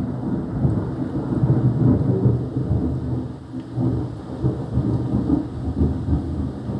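Thunder rolling on in a long, low rumble that swells and fades several times, over rain falling.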